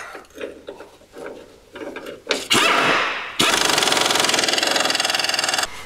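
Power ratchet running a bolt in tight: a short burst about two and a half seconds in, then about two seconds of rapid, continuous rattling that cuts off suddenly near the end.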